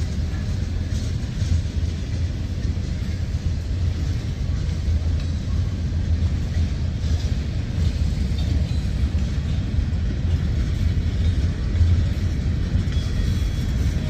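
Freight train cars, covered hoppers and a steel coil car, rolling steadily past on the track: a continuous low rumble of wheels on rail.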